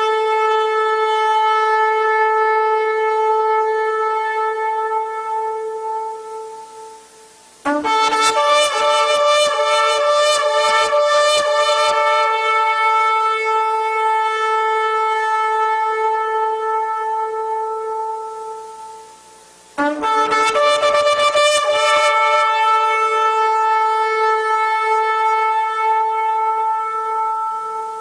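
Shofar sounded in long, held blasts. One blast is already sounding at the start and fades out about seven seconds in. Fresh blasts begin about eight and twenty seconds in; each opens on a short lower note, flutters rapidly for a few seconds, then holds one steady tone before fading.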